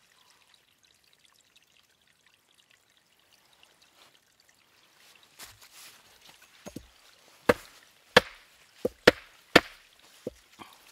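Geologist's hammer striking a stone nodule to crack it open: a few light knocks, then about six sharp, loud blows in quick succession over the last few seconds.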